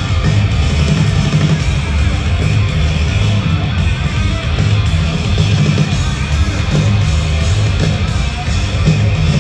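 Live rock band playing loud and steady, with heavy bass and electric guitar, heard from within the crowd at a concert.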